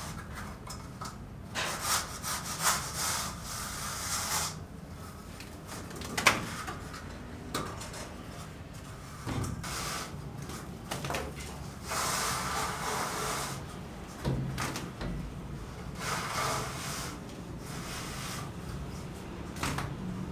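Irregular bursts of scraping or rubbing, each a second or two long, like hand tool work on wood or a hard surface, with one sharp knock about six seconds in.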